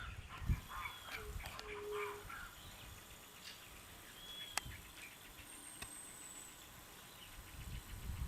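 Scattered wild animal and bird calls: a short low call twice in the first two seconds, a few brief arching high notes, a sharp click about halfway, and a thin high whistle after it.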